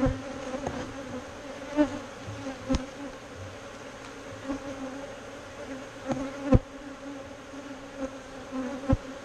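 Honeybees buzzing around an opened hive during a frame inspection, a steady pitched hum. A few sharp knocks and clicks sound over it, the loudest about six and a half seconds in.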